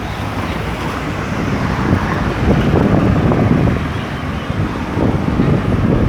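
City street traffic: vehicles running past, with wind buffeting the microphone. The noise swells a little in the middle and again near the end.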